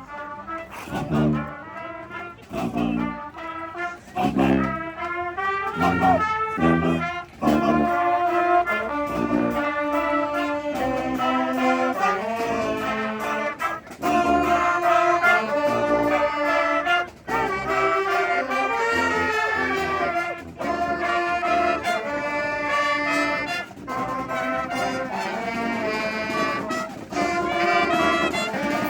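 Brass street band playing an instrumental tune. It opens with short, separate notes, and the full ensemble comes in about seven seconds in.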